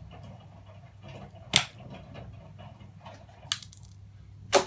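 Sharp clinks of small brass and plastic plug parts being handled and dropped while plugs are stripped for scrap: three louder clinks, about a second and a half in, about three and a half seconds in and near the end, with faint ticking between them.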